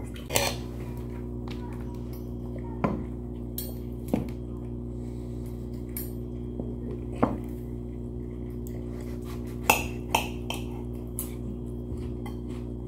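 Cutlery clinking on plates during a meal: a handful of sharp clinks a second or more apart over a steady low hum.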